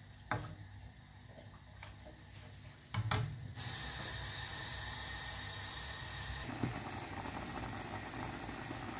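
A few light knocks, then from about three and a half seconds in a steady hiss of thick creamy sauce bubbling and sizzling in a frying pan.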